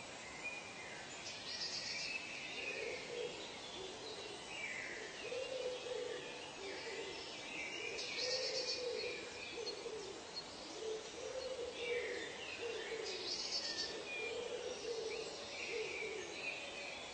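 Forest soundscape of wild birds calling: a low hooting call repeated about once a second from about three seconds in, over higher whistled and chirping calls. Three short, high, buzzy bursts stand out.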